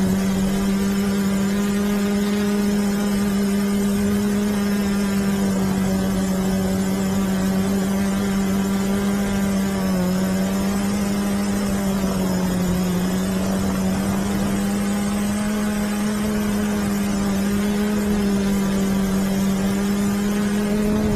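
Quadcopter's electric motors and spinning propellers heard from the craft's own onboard camera: a steady buzzing hum. Its pitch dips briefly about ten seconds in and rises slightly near the end as the motors change speed.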